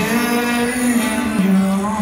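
Live music: acoustic guitar with a long held sung note.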